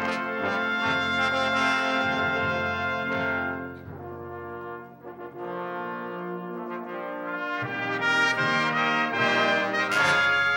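Brass ensemble playing slow held chords, which soften for a few seconds midway and then swell again.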